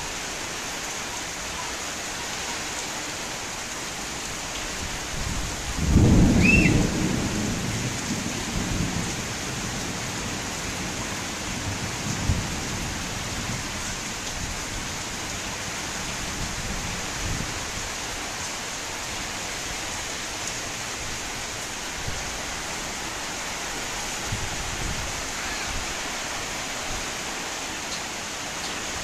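Heavy tropical-depression rain falling steadily, with one loud clap of thunder about six seconds in that rumbles away over the next few seconds.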